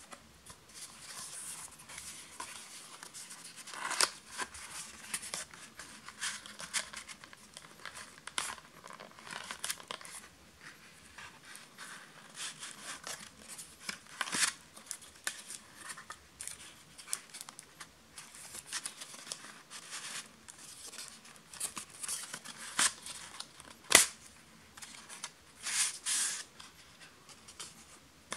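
Hands handling and unfolding a stiff cardboard packaging sleeve: irregular papery scrapes and rustles with scattered light clicks, and one sharper click near the end.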